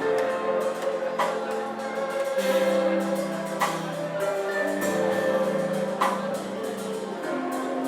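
Background music: held chords with a light percussion beat.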